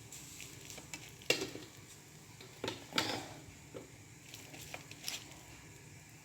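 Soft, scattered knocks and clicks of kitchen utensils against a pot, about half a dozen over several seconds, as hot steamed figs are handled.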